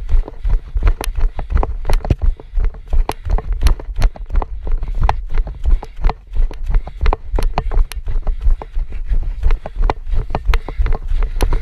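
Running footsteps on a dirt forest trail: rapid, uneven thuds and clicks over a heavy low rumble from the jostling camera.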